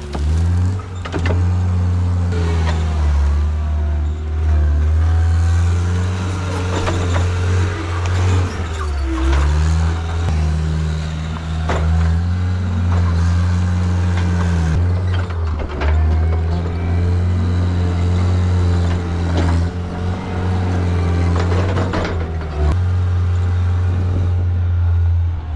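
Diesel engine of a John Deere 323D tracked skid steer working under load, its pitch sagging and recovering several times as it pushes and spreads dirt, with occasional clanks.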